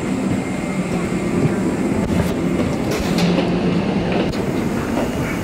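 Steady rumble of a moving vehicle heard from inside, with a few faint clicks along the way.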